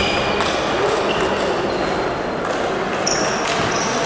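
Table tennis balls striking tables and bats: scattered sharp clicks, some with a short high ping, in a large hall.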